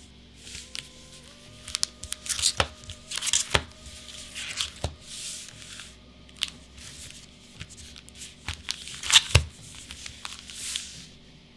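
Plastic wrapper of a Magic: The Gathering booster pack being torn open and crinkled by hand: irregular crackling rustles with a few sharp snaps, the loudest about nine seconds in.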